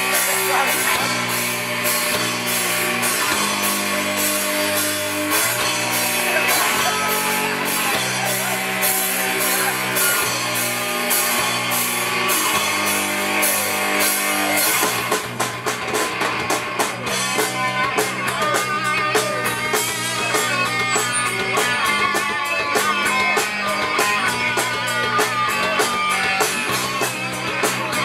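Live rock band playing through a PA: electric guitars, bass guitar and drum kit, with a steady run of cymbal hits. About halfway through, the held chords give way to a busier riff.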